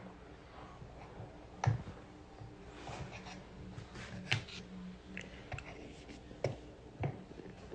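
Spoon working a dish of cornstarch powder: a few sharp clicks and faint scattered crackles, about one every second or so.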